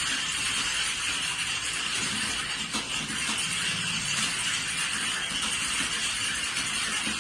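Many computer keyboards being typed on at once: a dense, steady clatter of overlapping keystrokes with no pauses.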